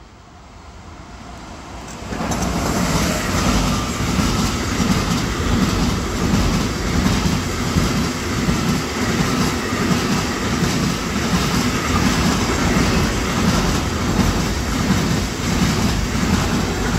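Intermodal container freight train hauled by an electric locomotive passing close by. The wheels on the rails make a continuous rumble with a rapid clickety-clack, growing louder as the train arrives and loud from about two seconds in.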